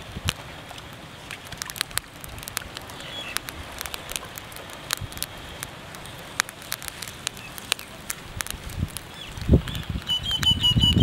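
Scattered sharp clicks and taps of hands handling fish and a metal pot on grass, with a low thump or two near the end. A bird chirps briefly about three seconds in and again near the end.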